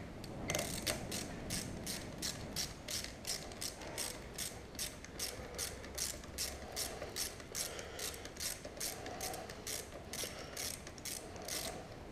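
Ratchet socket wrench clicking in a steady rhythm, about three clicks a second, as a 6 mm hex bolt is wound into a motorcycle handlebar clamp.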